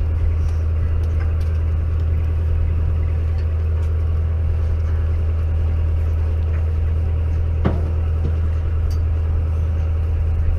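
A boat's engine running steadily with a low, even drone, with one sharp knock about three-quarters of the way through.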